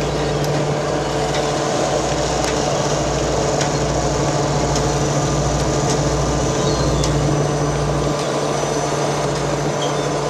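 Steady drone of a fishing vessel's diesel engines and deck machinery: a constant hum with a slow throb underneath.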